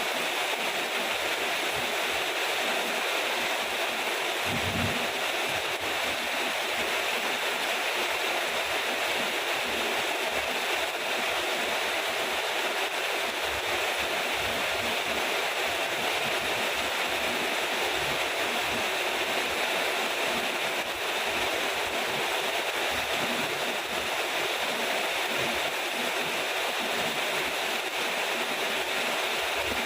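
Steady heavy rainfall, an even hiss of downpour with no breaks, and a brief low thump about five seconds in.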